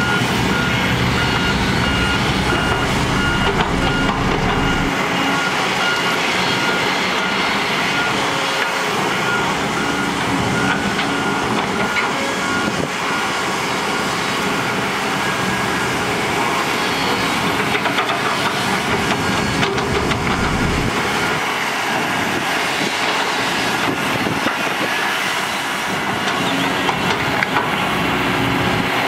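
Diesel engines of heavy earthmoving machines (excavators, a dump truck, a road roller) running, with a back-up alarm beeping over them at an even pace for about the first twelve seconds. A deep engine rumble drops away about five seconds in and returns briefly around twenty seconds.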